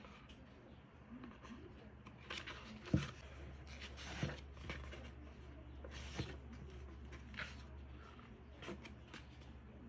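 Pages of a thick hardcover photobook being turned by hand: soft paper rustles and light taps as each page turns and settles, one every second or so, the loudest a dull tap about three seconds in.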